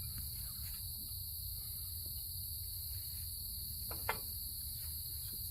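Crickets trilling steadily at night, with one sharp click about four seconds in.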